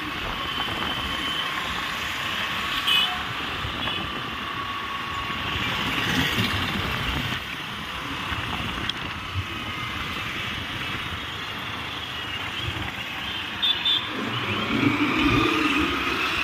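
Traffic and road noise from a moving vehicle on a city road: a steady rush of engines and tyres from the vehicle and the traffic around it.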